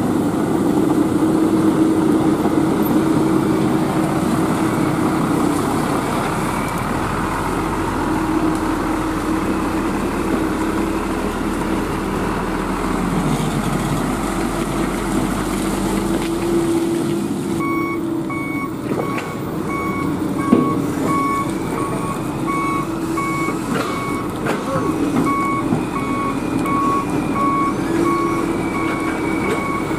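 Heavy diesel truck engine running steadily. From a little past halfway a reversing alarm beeps at an even rhythm while the truck backs up, and there is one sharp knock about two-thirds through.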